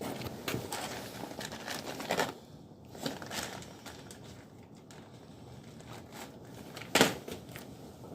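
Plastic rustling and scattered light clicks from handling nylon cable ties around a motorcycle wiring loom, with one sharper click about seven seconds in.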